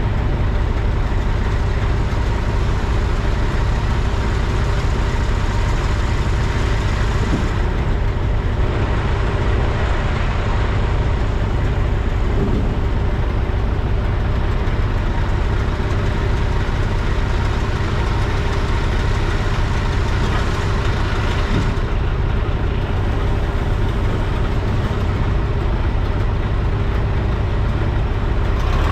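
Diesel engine of heavy equipment running steadily, with a strong low hum.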